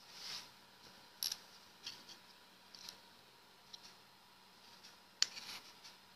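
Light plastic clicks and taps from a small plastic USB stick being handled and set on a wooden desk: a few scattered ticks, with one sharp click about five seconds in.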